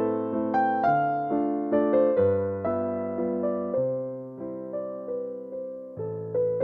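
Background piano music: single notes struck at about two a second, each fading, over lower notes that change every second or two.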